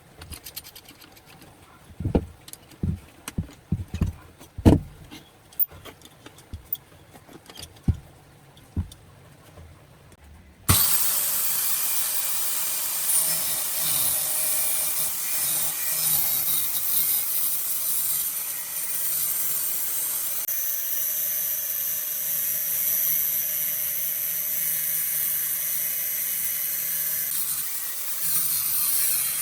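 Scattered knocks and clicks of parts and tools being handled on a bench, then a power tool starts abruptly about ten seconds in and runs steadily under load with a loud high hiss.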